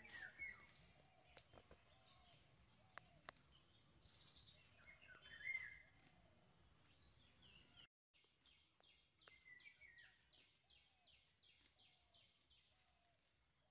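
Faint outdoor ambience with a steady high-pitched whine and scattered bird chirps. About eight seconds in there is a brief dropout, followed by a run of quick repeated notes, about three a second.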